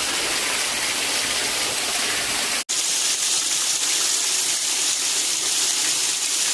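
Waterfall rushing, a steady pour of water. It drops out for an instant about two and a half seconds in and comes back with less low rumble.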